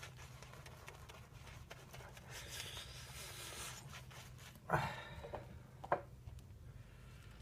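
A small cloth towel rubbing briefly over a lathered face, then three light knocks as things are handled on a tabletop, the first the loudest, over a low steady hum.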